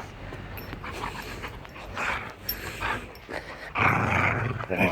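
A dog vocalising in rough play: a few short sounds, then a louder, longer one near the end.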